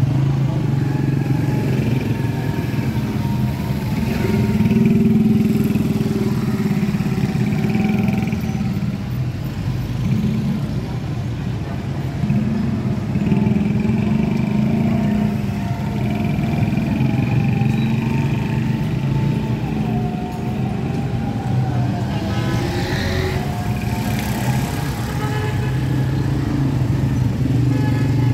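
Busy street traffic dominated by motorcycle engines running and passing close by, with cars among them.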